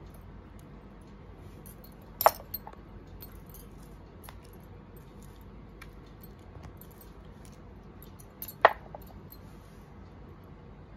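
Two sharp clinks of a utensil against a glass, about six seconds apart, with faint light ticks between.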